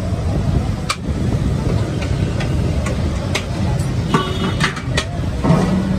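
Busy street noise: a steady low rumble of traffic and engines, with scattered sharp clicks and knocks.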